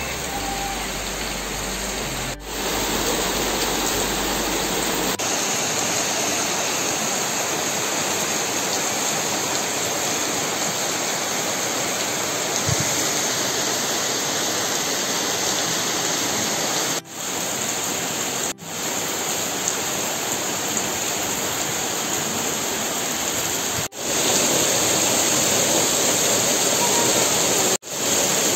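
Heavy monsoon rain falling steadily, a dense even hiss of downpour on foliage and the ground. It cuts out sharply for a moment about five times.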